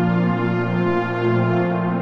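Sustained ambient chord played on a sampled-instrument preset, its notes held steady with a soft brass-like tone.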